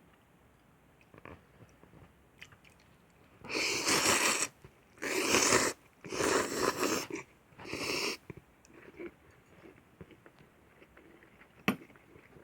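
Korean instant noodles slurped up from the bowl in four loud, hissing slurps of about a second each, with small mouth and utensil clicks around them and one sharp click near the end.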